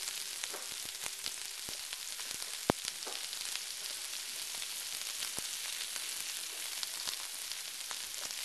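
Chopped onion, celery, ginger and garlic sizzling steadily in hot olive oil in a wok, with scattered sharp clicks and one louder knock a little under three seconds in.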